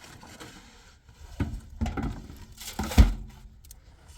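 A few knocks and thumps over faint scraping noise, the loudest a heavy low thump about three seconds in.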